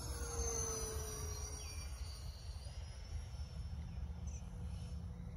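Whine of an E-flite A-10's twin electric ducted fans as the model jet flies by, several pitches falling together over the first two seconds or so, over a steady low rumble.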